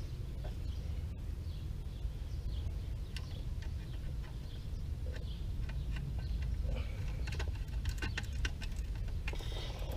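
A screwdriver working terminal screws inside a metal outdoor electrical disconnect box, making scattered light clicks and scrapes that come more often in the second half, over a steady low rumble.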